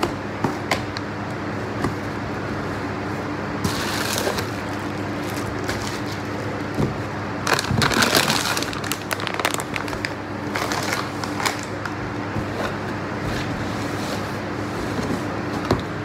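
Plastic grocery bags rustling and crinkling as packaged items are handled in and lifted out of a cardboard box, in bursts about four seconds in and again from about seven and a half to eleven seconds in, over a steady low hum.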